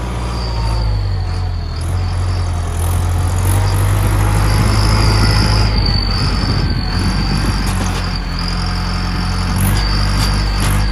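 Tractor engine running steadily, with a thin high whine on top that comes and goes.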